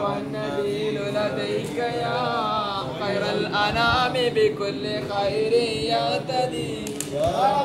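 Several voices chanting together in a sung, gliding melody: devotional chanting at the shrine.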